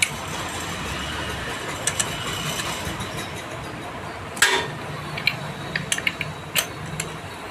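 Hand tools clinking and clicking on metal engine parts while the clutch-assembly nut is undone, with scattered sharp metallic clicks, the loudest about four and a half seconds in. A low steady hum runs underneath.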